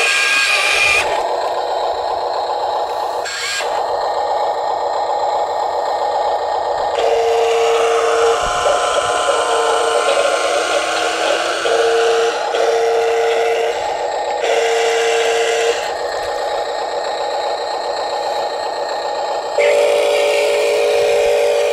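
Electric motor whine and rattling from a radio-controlled dump truck as its mud-laden tipper bed raises and dumps its load, with steady tones that stop and start several times.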